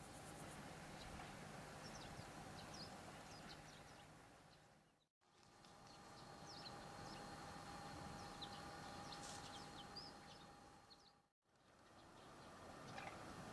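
Faint birds chirping in short scattered calls over a quiet, steady low hum. The sound drops out completely for a moment twice.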